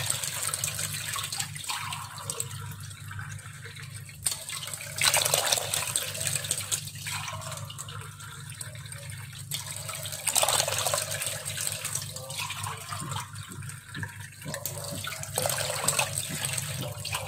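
Glassfuls of water poured one after another into a pan, in splashing pours that come about every five seconds, over a low steady hum.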